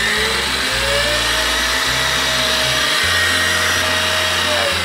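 Electric mixer running, creaming margarine, sugar and eggs for a cheesecake's cheese mass; its whine rises in pitch in the first second, holds steady, and falls again near the end. Background music with low held notes plays underneath.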